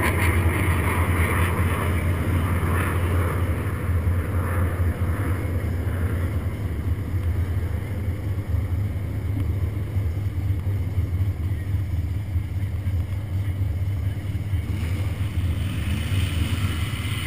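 Off-road vehicle engine idling with a steady low rumble, heard through a vehicle-mounted camera.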